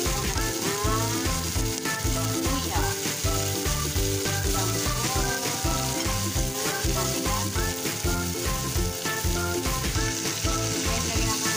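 Sliced onion and garlic sizzling in olive oil in a frying pan, stirred now and then, with background music.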